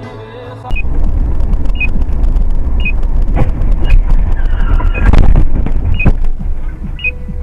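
Dashcam audio of car crashes: loud low road and wind rumble with a short high beep repeating about once a second, broken by several heavy crashing impacts around the middle.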